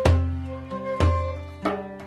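Indian hand drum playing a rhythmic pattern: deep ringing bass strokes at the start and about a second in, with sharper, lighter strokes between. A melodic instrument holds notes that step from one pitch to the next underneath.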